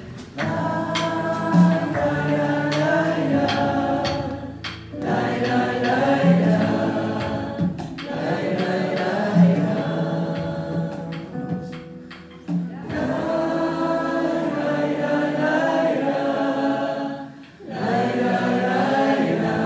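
Several voices singing together in harmony over acoustic guitars and light percussion, in phrases broken by short pauses about every four seconds.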